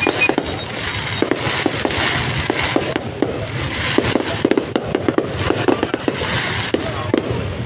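Fireworks going off in a continuous barrage: many bangs and crackles overlapping in quick, uneven succession.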